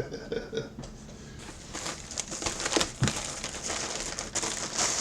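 Packaging crinkling and rustling as a jersey is unwrapped by hand, with a few light clicks.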